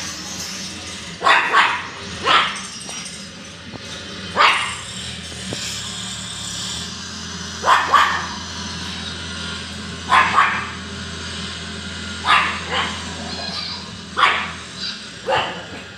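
Pug barking in short, sharp barks, some single and some in quick pairs, every second or two: alert barking at something it has noticed outside.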